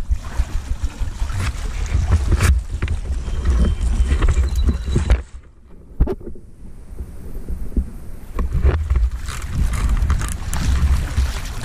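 Wind buffeting the microphone in gusts, over splashing and sloshing from someone wading through shallow water, with a few sharp knocks. A brief lull comes about five seconds in.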